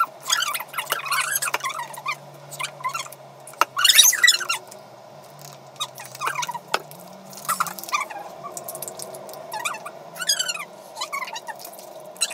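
High-pitched, squeaky chattering voices in short snatches, too high and garbled for words to be made out, over a steady low hum.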